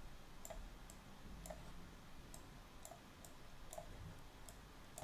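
Faint computer mouse clicks, about ten, irregularly spaced, as the mouse button is pressed and released while drawing on screen.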